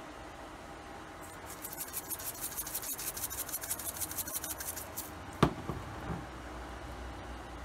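Rapid clicking grind of a McCormick Grill Mates Smoky Montreal Steak seasoning grinder being twisted over steaks for about three and a half seconds. It is followed by one sharp knock and a couple of lighter taps, over a faint steady hiss.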